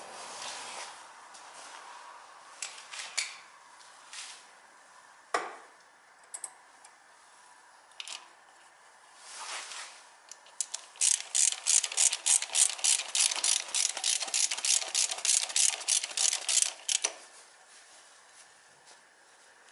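Ratchet wrench clicking in a fast even run of about five clicks a second for roughly six seconds, after a few scattered clinks and knocks.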